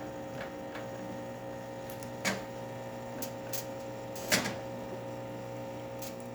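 The vibration pump of a Quick Mill Andreja Premium espresso machine hums steadily while it pulls a shot. A few short knocks or clicks come over it, the loudest about two seconds in and again about four seconds in. The pump is running normally after a full service.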